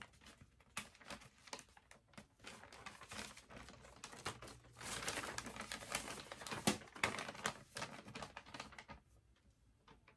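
A paper letter being handled and unfolded: quick rustling and crackling of the sheets, busiest in the middle, then quieter near the end.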